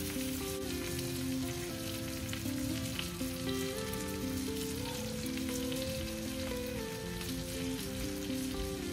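Slices of egg-soaked bread (French toast) sizzling steadily in butter on a stovetop griddle, under gentle background music with a slow melody.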